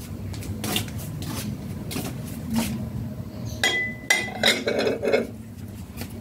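Scattered light knocks and clinks, with a quick run of sharper clinks a little past halfway, one of them ringing briefly, over a steady low hum.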